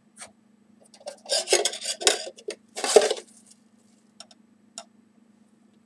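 Metal teaspoon scraping and scooping against porcelain, with several short dry rasping bursts, then two light clinks about half a second apart.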